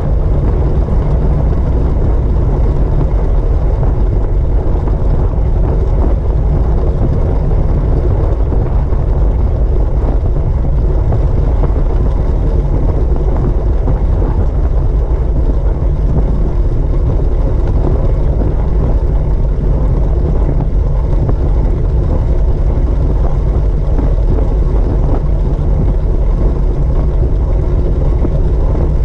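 Wind rushing over a bike-mounted GoPro's microphone as a fixed-gear track bike rides at speed, mixed with the rolling noise of the tyres on the wooden velodrome boards. The sound is steady and deep, with no letup.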